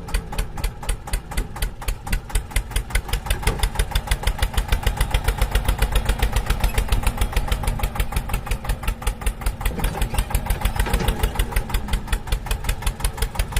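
An engine running steadily with a rapid, even beat of about eight pulses a second.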